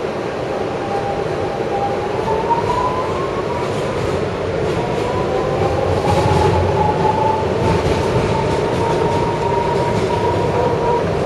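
R160 subway train's electric propulsion whining over a steady rumble of the moving cars, the whine rising in pitch twice and then holding steady as the train gathers speed. Wheels click now and then over rail joints.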